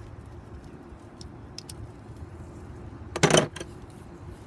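A brief, loud clatter of metal hand tools being handled, about three seconds in, against a steady low background.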